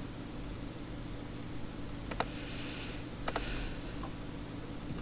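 A few sharp computer clicks, in two quick pairs about a second apart, with a short rustle between them, over a steady low hum on the call's audio.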